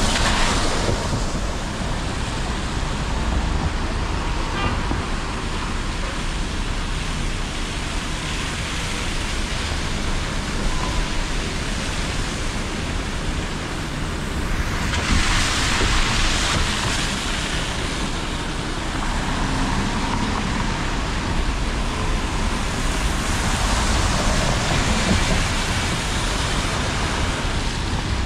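City traffic on a rain-soaked road: buses and cars passing with a hiss of tyres on wet pavement over a steady low rumble. A bus goes by close at the start, and more vehicles swell past around the middle and again a few seconds before the end.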